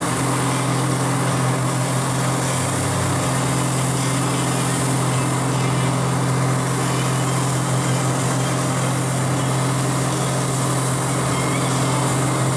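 Second-generation Dodge Ram pickup doing a burnout: the engine is held at steady high revs as the rear tyres spin on the pavement, with a constant hiss from the tyres.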